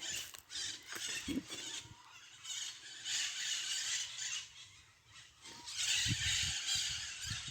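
A flock of maritacas (parakeets) screeching together, shrill overlapping calls coming in several stretches with short lulls between them.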